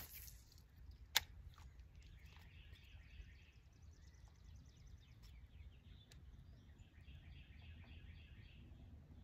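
Faint birds chirping and trilling over a low wind rumble. One sharp click about a second in.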